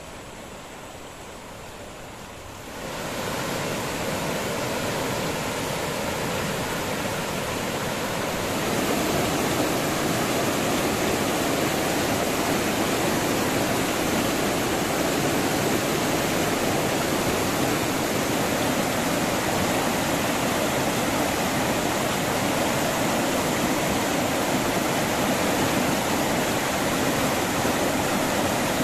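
Fast-flowing river water rushing, a steady noise that gets louder about three seconds in and again about nine seconds in.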